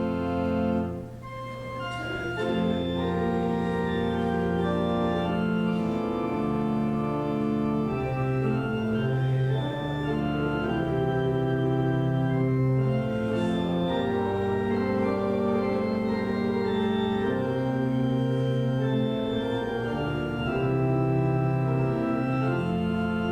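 Church organ playing slow sustained chords that change every second or two, with a brief drop in loudness about a second in.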